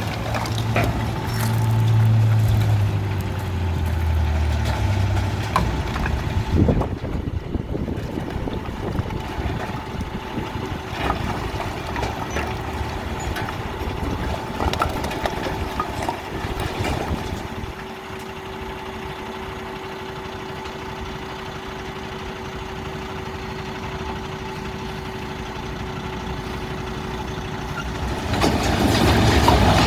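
Heavy diesel engine running. It is loudest and deepest in the first few seconds, drops in pitch, then settles to a steady idle with a thin constant whine, and a few knocks and clanks sound over it.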